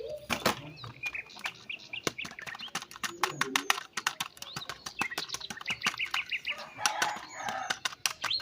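Small birds chirping in short, quick notes among many sharp clicks and taps.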